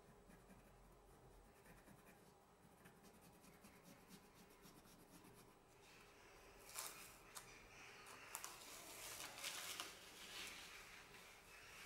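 Very quiet pencil scratching on paper. From about seven seconds in come light rustles and crackles as a paper template and masking tape are peeled off a plywood piece.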